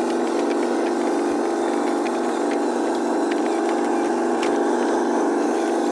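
Radio-controlled truck running steadily while pulling a lowboy trailer loaded with a model excavator, its drive giving a steady hum with a few small clicks.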